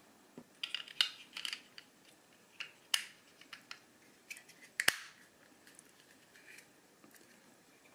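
Small plastic clicks and light scrapes as the plastic case of a cheap USB logic analyzer is pressed back together around its circuit board, with a sharper click about three seconds in and another near five seconds.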